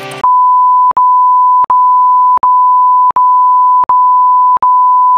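A loud, steady, high-pitched electronic beep tone, broken by a brief click about every three-quarters of a second, like a short tone clip looped end to end.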